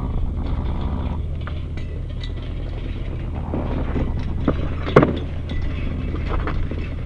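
A steady low engine hum, like a vehicle idling, with scattered metallic clinks and a sharp knock about five seconds in.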